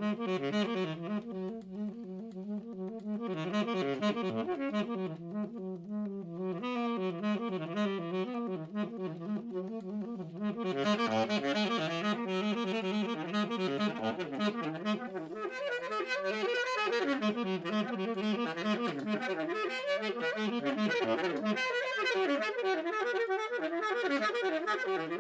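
Free-improvised jazz from a saxophone, piano, double bass and drums quartet, with the saxophone playing dense, fast-moving lines. About ten seconds in, the playing turns brighter and busier.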